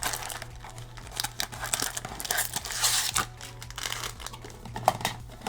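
Packaging of a trading card blaster box being torn open and crumpled, an irregular run of crinkles, rips and sharp clicks, heaviest about three seconds in, over a low steady hum.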